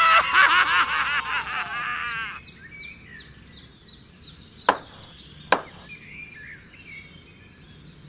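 A cartoon sound effect, a rapid high warbling chatter, for about two seconds. It is followed by light bird chirping, with two sharp clicks a little under a second apart near the middle.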